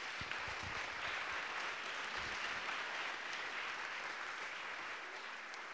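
Audience applauding in a hall, a steady patter of many hands that eases off near the end.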